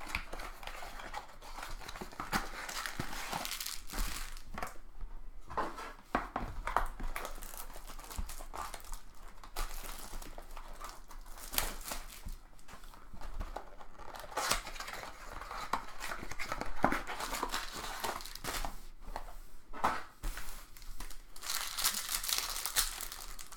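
Trading card packaging crinkling and tearing as it is opened by hand, an irregular rustle with small sharp clicks.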